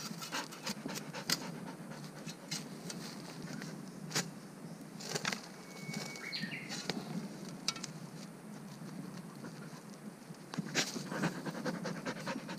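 Golden retriever panting as it digs and noses into dry bamboo leaf litter and soil, with scattered crackles and scrapes of leaves and earth that grow busier near the end.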